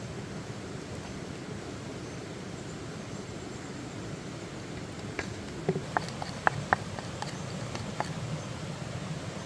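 Steady rush of flowing stream water, with a run of short, sharp clicks and pops starting about halfway through.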